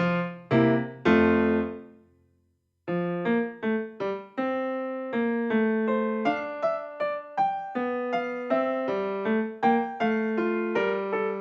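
Background piano music in a steady rhythm. It fades out about two seconds in, pauses briefly, then starts again.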